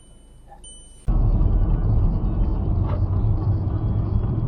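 A low, steady vehicle rumble starts abruptly about a second in, after a quiet opening, as if heard from inside a moving car.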